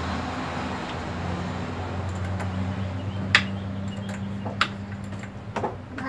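A few sharp metallic clicks of a wrench and clamp on a car battery's negative terminal as it is refitted and tightened, over a steady low hum.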